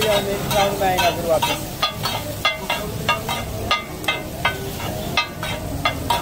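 Metal spatulas striking and scraping a large flat iron griddle (tawa) in quick, ringing clanks, about two to three a second, as fried potato patties and corn are chopped and mixed. A steady sizzle of frying runs underneath.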